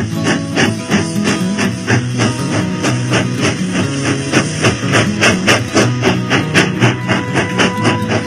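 Background music with a quick, even beat and plucked guitar.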